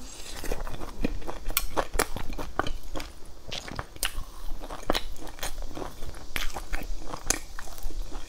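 Close-miked crunchy bites and chewing of crisp fried crumb-crusted bread, with irregular sharp crackles throughout.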